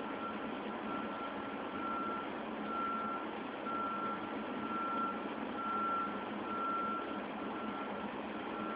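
Reversing alarm of a work vehicle backing up, a single high-pitched beep repeating about once a second, over a steady background noise.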